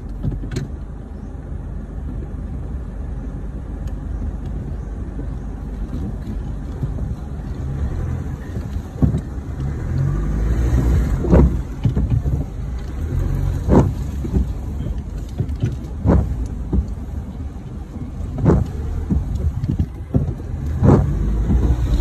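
Four-wheel-drive vehicle's engine running with a steady low rumble, heard from inside the cabin. From about nine seconds in there is a short sharp knock about every two and a half seconds.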